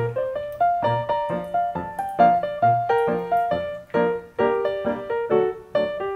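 Background music: a piano playing a light melody of quick, separate notes.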